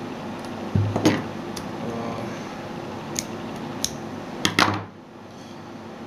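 A handful of sharp clicks and light taps from fingers handling the stripped end of a network cable as its twisted pairs are worked loose, over a low steady hiss that drops away near the end.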